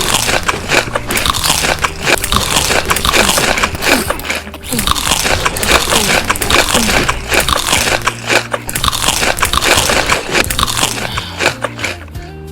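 Loud, crunchy biting and chewing of food close to the microphone, a dense run of crackling crunches that eases off near the end.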